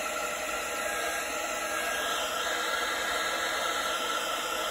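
Embellishing heat gun running steadily: a constant blowing hiss with a faint steady whine.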